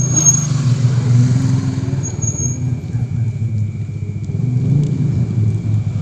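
A congregation of men chanting dhikr together in low, drawn-out unison notes, the many voices blending into a steady drone.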